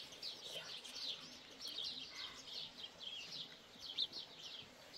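Small songbirds chirping, a steady chorus of quick, high chirps that slide down in pitch and overlap, with a short sharp tap about four seconds in.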